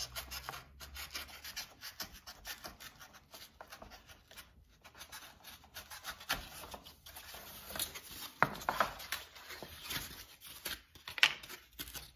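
Craft knife cutting through a molded paper-pulp egg crate along a seam: a fast run of short scratchy strokes, with a couple of louder scrapes near the end.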